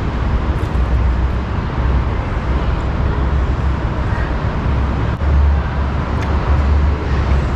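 Steady city traffic noise with a constant low rumble.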